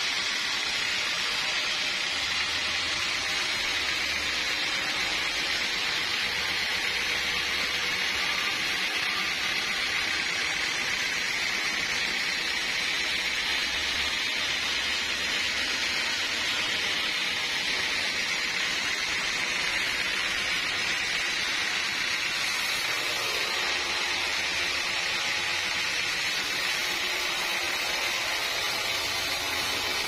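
Sawmill saw cutting through a large teak log: a steady, even hiss that runs on without a break.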